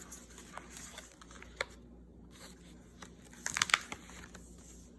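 Paper rustling and crinkling as the pages, pockets and tags of a handmade paper journal are handled and turned. There is a sharp tick about a second and a half in, and a louder burst of rustling a little past halfway.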